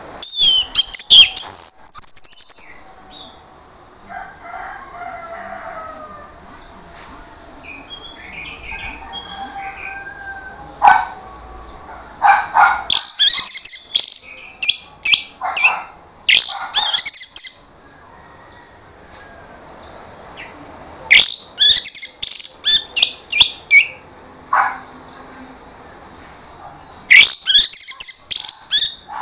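Orange-headed thrush (anis merah) singing a rough-voiced song in four loud bursts of rapid, high notes, with quieter scattered bird calls in the gaps between them.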